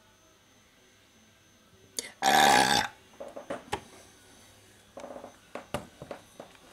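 A man belches loudly once, for under a second, about two seconds in. A run of light clicks and knocks follows as a resin model mini-nuke is picked up and handled.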